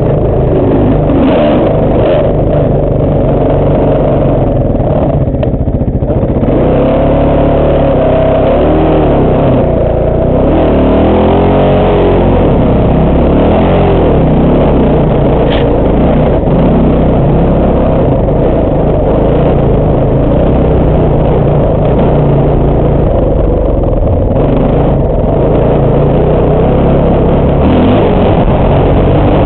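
Dirt bike engine running as the bike rides a rough trail, heard close up from the bike itself. Its revs rise and fall repeatedly in the first half as the throttle is worked, then hold steadier.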